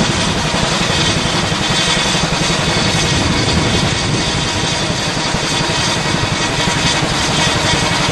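Boeing CH-47 Chinook tandem-rotor helicopter running loud and steady, with a rapid chop from its rotors.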